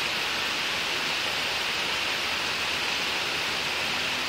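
Heavy downpour of rain: a steady, even hiss that does not change.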